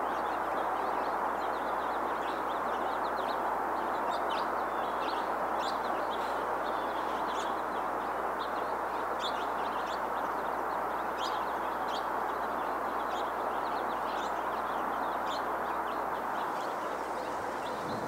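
Small songbirds giving short, sharp, high chip notes, several in quick succession and scattered irregularly, over a steady rushing background noise.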